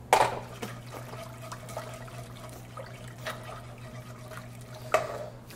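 Milk sauce being stirred and whisked in a saucepan, with a sharp clink of a utensil against the pan right at the start and another about five seconds in. There are lighter ticks between them, over a steady low hum.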